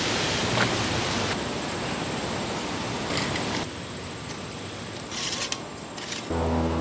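Steady outdoor hiss with a few short rattles of a steel tape measure being pulled out and handled. A low steady hum comes in near the end.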